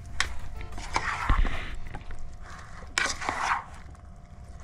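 A spoon stirring and scraping through diced fish and vegetables in a bowl: two rough scraping strokes, about a second in and three seconds in, with a few light clicks.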